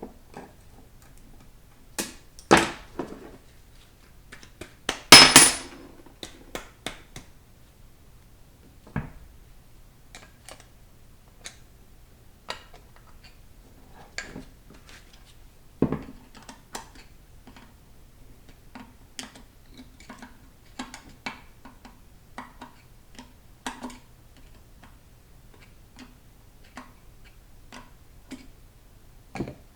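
Metal hand tools and steel transmission parts clinking and knocking against one another and the work table, in scattered single taps with a louder clatter about five seconds in.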